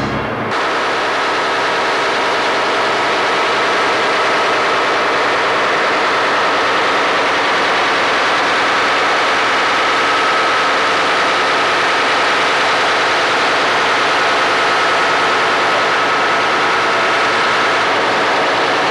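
Steady, loud machinery noise aboard a naval tender, with a faint steady whine over it.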